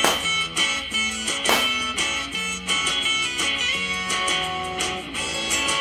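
Upbeat guitar-led background music, with two sharp balloon pops: one right at the start and one about a second and a half in.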